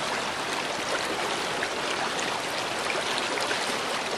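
River water flowing steadily through a shallow stretch, an even, unbroken rush.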